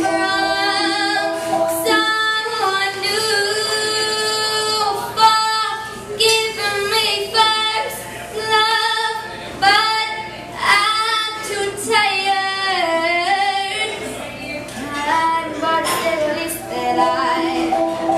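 A young girl singing a song into a microphone, holding long notes with pitch slides between them.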